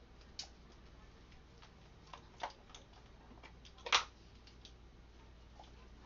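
A measuring spoon clicking and tapping against glass jars while dried dill is spooned in: a few scattered sharp clicks, the loudest about four seconds in.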